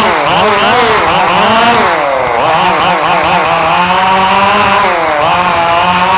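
Radio-controlled cars' small engines running hard, their pitch rising and falling quickly and constantly, with more than one engine heard at once.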